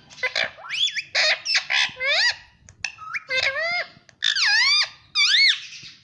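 Ringneck parrot chattering in a rapid string of short calls whose pitch swoops up and down. The string ends in two longer rising-and-falling calls near the end.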